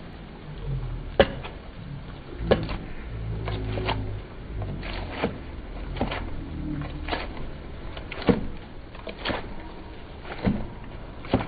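Large knife chopping grilled kokoreç on a wooden cutting board: sharp, irregular knocks of the blade striking the wood, about one a second, over a low rumble.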